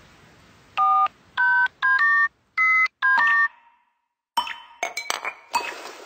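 Telephone keypad touch-tones: about seven short two-pitch beeps in quick succession, as if a number is being dialled. After a brief silence, a quick run of sharp, ringing percussive hits starts about four seconds in.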